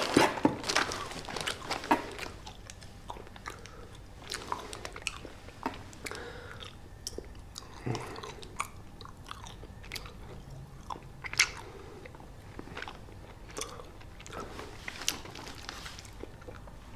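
A person chewing candy close to the microphone, with irregular short crunchy clicks of biting and chewing.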